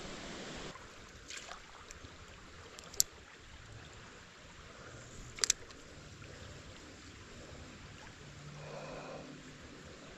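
Steady soft hiss of a small creek flowing, with a few sharp clicks from handling the spinning rod and reel: one about three seconds in and a quick double click about five and a half seconds in.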